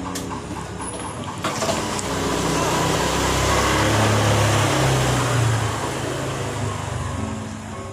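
A passing road vehicle: a rumbling noise that swells from about two seconds in, is loudest around the middle and fades toward the end.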